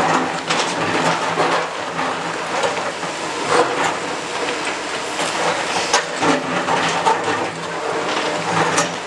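Hydraulic excavators' diesel engines running steadily while their steel buckets scrape and break up stone rubble and masonry, with frequent sharp knocks and clatters of falling rock.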